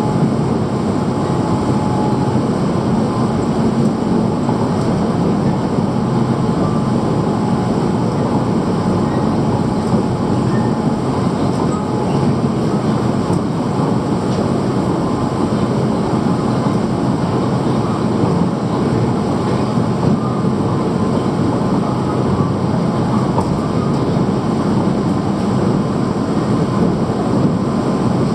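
Steady running noise inside a car of the Bangkok MRT Yellow Line monorail, a rubber-tyred train under way between stations: an even low rumble with a faint steady whine above it.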